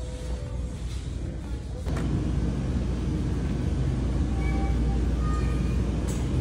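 Supermarket background noise: a steady low rumble that grows louder about two seconds in, with a few faint distant tones above it.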